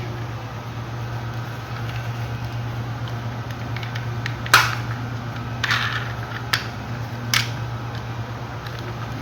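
Handling of a plastic toy airplane: four sharp plastic clicks about a second apart, the first the loudest, over a steady low hum.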